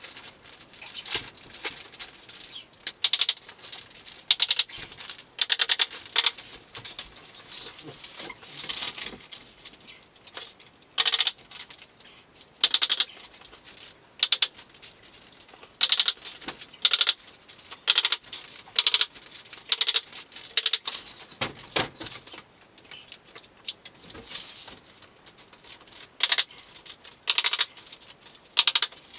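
Polythene sheeting crackling and rustling in repeated short bursts as it is pulled taut over a timber frame, mixed with sharp clicks as it is stapled down.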